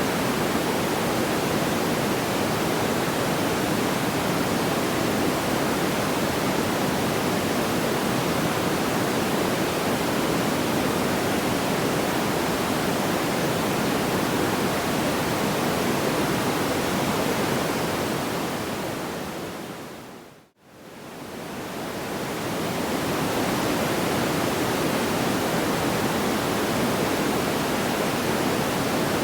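Steady rushing noise, even across low and high pitches, with no distinct crackles or pops. About two-thirds of the way through it fades out to silence and fades back in over a few seconds, the seam of a looped track.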